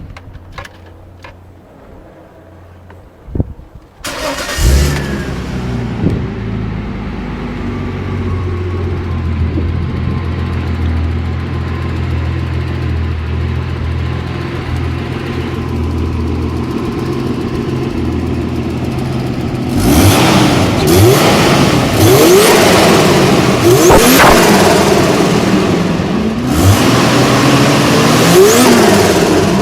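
Turbocharged car engine starting about four seconds in and idling steadily, then revved hard several times from about twenty seconds in, its pitch rising and falling with each rev. Each throttle lift brings a burst of turbo flutter.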